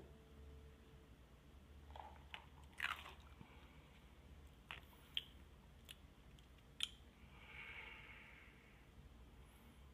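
Near silence with faint mouth sounds after a drink from a plastic cup: a few scattered lip smacks and mouth clicks, then a soft hiss lasting about a second near the end.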